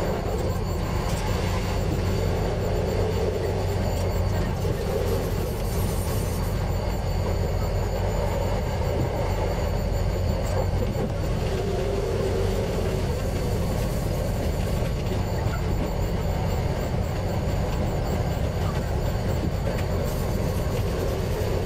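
KTR700-series diesel railcar running along the line: a steady mix of engine drone and wheel-and-rail noise.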